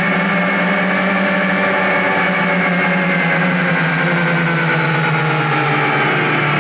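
A motor or engine running steadily, its pitch sinking slightly over the few seconds.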